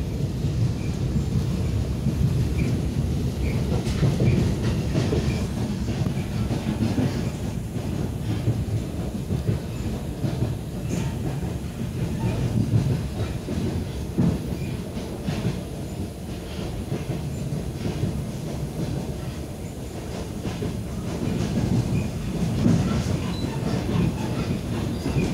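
Suburban electric train running, heard from inside the carriage: a steady low rumble of wheels on the rails with occasional clacks over the rail joints.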